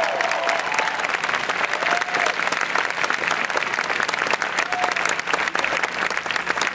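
Large crowd applauding, dense steady clapping.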